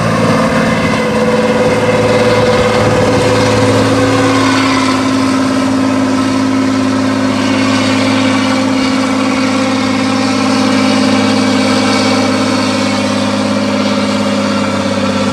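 Tatra 813 8x8 trial truck's diesel engine running loud and steady at high revs under heavy load as the truck climbs a steep dirt slope, its note holding one pitch for most of the time.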